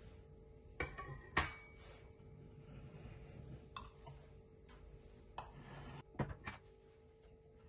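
Knife cutting a soft cake in a glass baking dish, the blade clicking and tapping against the glass several times, louder around a second and a half in and in a quick cluster near the end.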